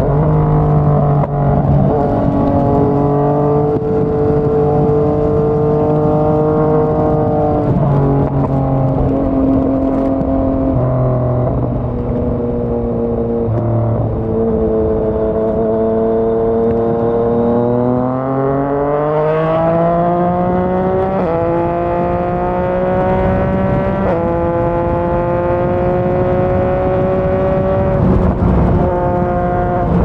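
Yamaha MT-09's inline three-cylinder engine through a Yoshimura R55 slip-on exhaust, ridden at road speed. The engine note holds steady in stretches and steps up or down several times with gear changes, with a long steady rise in pitch under acceleration in the middle.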